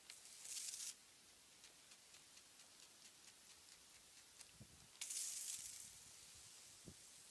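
Two brief hissing whooshes of water sprayed into frigid air. The first comes right at the start and the second, louder one about five seconds in, trailing off over about a second.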